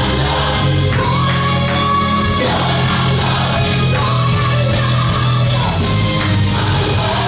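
Gospel song playing: sung vocals over a band backing with a steady bass line.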